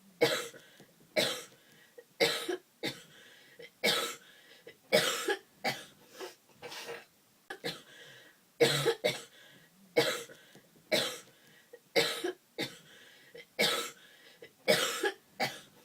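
A person coughing over and over, a short cough about every second, many coming in quick pairs.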